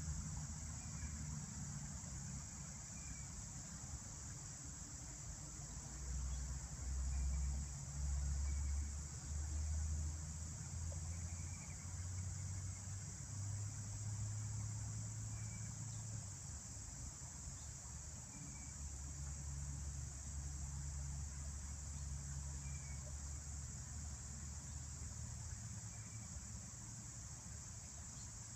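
Late-summer chorus of insects such as crickets, a steady high-pitched trilling that never breaks. Under it a low rumble comes and goes, loudest several seconds in, and faint short chirps sound every few seconds.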